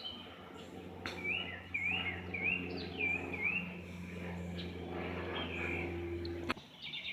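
A songbird singing a run of about five quick, slurred whistled notes, with a single further note a little later. Under it a steady low hum runs and cuts off suddenly near the end.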